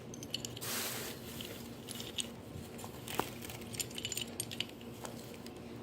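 Quiet handling noises: small clicks and light clinks as the pieces of a broken figurine are handled and fitted together, with a short rustle about half a second in.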